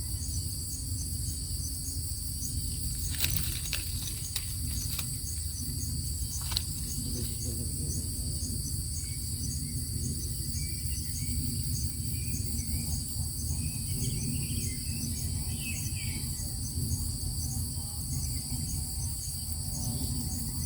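Steady insect chorus, a high-pitched trilling that holds in several pitches throughout, over a low steady rumble. A few sharp clicks come about three to six seconds in.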